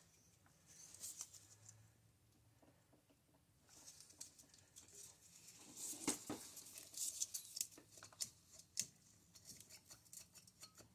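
Faint, scattered clicks, taps and light scraping as a cylinder is wiggled down over the piston rings and mounting studs of a Honda Rancher 350 engine by hand. The clicks are sparse at first and busier from about four seconds in.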